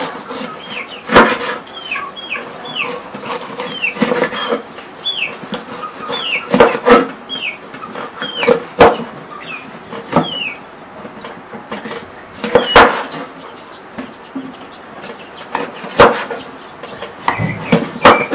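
Chickens clucking in many short, high, falling calls, punctuated by sharp single knife strikes chopping on a board every one to three seconds.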